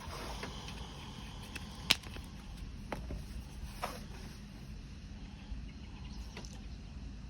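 A few sharp metallic clicks and taps from a camo multitool hammer-axe being handled, the loudest about two seconds in, over a steady low background noise.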